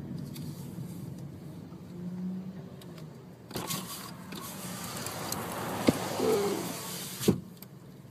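Car interior noise in traffic: a low steady hum of engine and road. About three and a half seconds in, a louder hiss rises for almost four seconds, with two sharp knocks, the second as the hiss cuts off.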